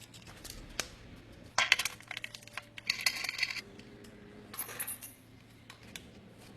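Small metal objects clinking and rattling in three short bursts, with scattered sharp clicks between them.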